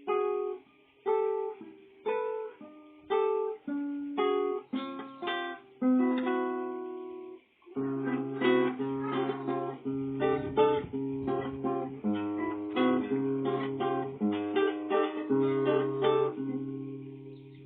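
A plucked string instrument playing: separate chords about once a second, each dying away, then from about eight seconds in a faster, fuller passage of picked notes over a held bass note.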